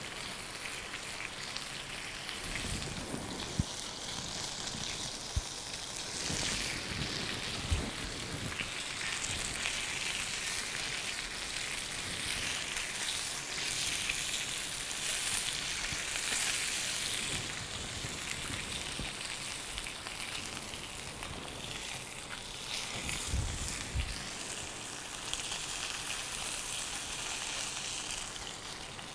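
Salmon fillets sizzling on a hot ridged grill pan, a steady hiss that swells and eases a little, with a few short clicks and knocks as metal tongs move and turn the fillets on the pan.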